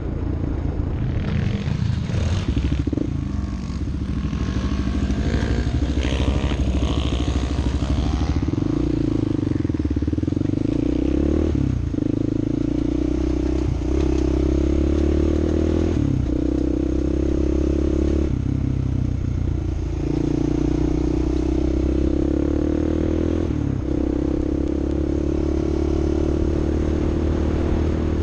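Off-road vehicle engine running steadily under load, with brief dips in its note every couple of seconds. Rattling and clatter are mixed in over roughly the first eight seconds.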